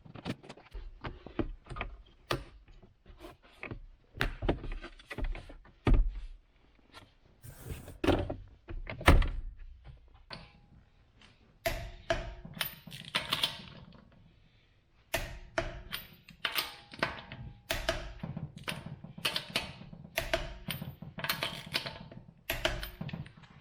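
An irregular run of knocks, clunks and clicks, some several a second, with short pauses between clusters.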